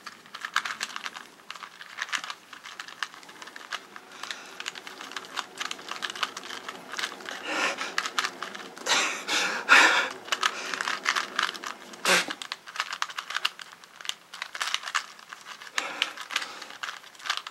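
Rubik's Cube being twisted quickly by hand, its plastic layers clicking in a fast irregular stream, with a few louder bursts of twisting about halfway through.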